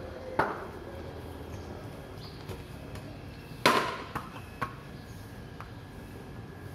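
A cricket bat knocks once on the tiled ground, then a few seconds in there is a loud knock as the bat strikes the ball. The ball then bounces a few times on the tiles, each knock fainter.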